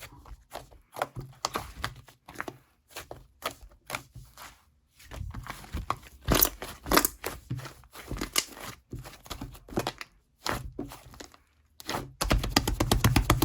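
Slime being squeezed and worked by hand, making irregular sticky pops and crackles, with a dense run of crackling near the end.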